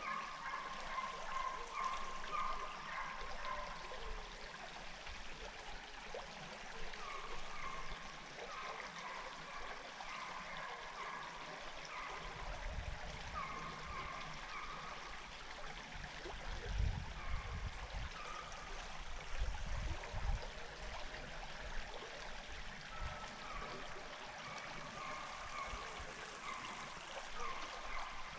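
Small creek flowing and trickling steadily over a fallen log. Through it runs a string of short, high calls repeating about once a second, and a low rumble comes and goes in the middle.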